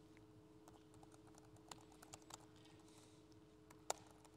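Faint typing on a computer keyboard: irregular key clicks, one louder click near the end, over a steady low hum.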